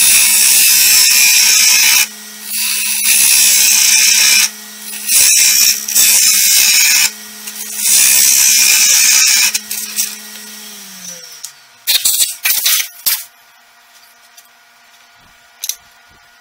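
Hollowing tool cutting inside a spinning wooden vessel on a Grizzly wood lathe: loud ripping of shavings in several long bursts over the lathe motor's steady hum. About eleven seconds in, the hum drops in pitch and stops as the lathe winds down, followed by a few sharp knocks.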